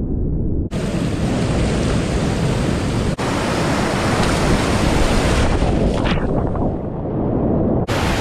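Loud, steady rush of whitewater in a creek rapid, heard from a kayaker's helmet camera. It is muffled for the first second or so, then turns abruptly fuller and brighter, with a short dropout about three seconds in.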